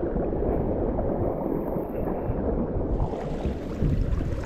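Sea kayak being paddled: water washing along the hull and paddle blades in a steady wash that grows brighter about three seconds in.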